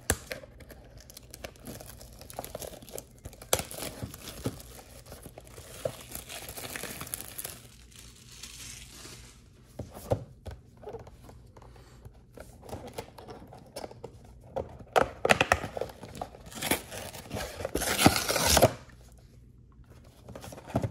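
Cellophane shrink wrap being torn off a trading card box and crinkled, then the cardboard box top torn open, with the loudest tearing bursts near the end.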